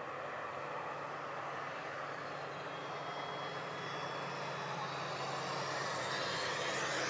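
Electric FMS 1400mm P-40B RC warbird flying overhead, its propeller and onboard engine-sound system making a steady drone that grows louder toward the end as the plane comes closer.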